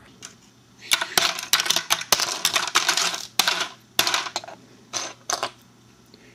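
Hard plastic LEGO bricks and minifigures clicking and clattering as they are handled: a quick run of clacks starting about a second in, then a few single clicks.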